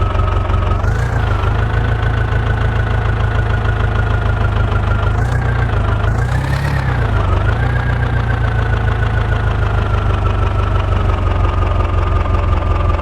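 Heavy diesel engine running steadily, with brief rises in engine speed about a second in and again between about five and seven seconds in.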